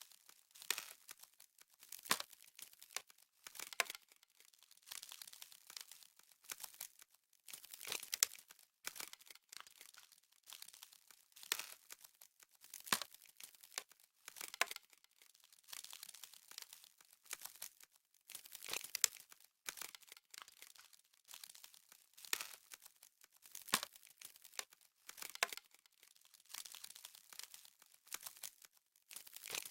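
Crisp frost crackling and crunching in irregular short bursts, mostly high-pitched, with brief pauses between them.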